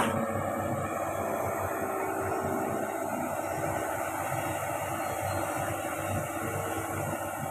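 Hitachi Zaxis 110 hydraulic excavator's diesel engine running steadily, a constant even mechanical noise with no distinct knocks.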